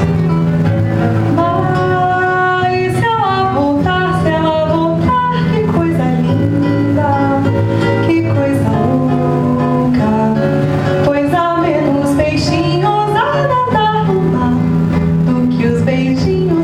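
Bossa nova played on a nylon-string acoustic guitar, bass notes held under a flowing melody line that slides between notes.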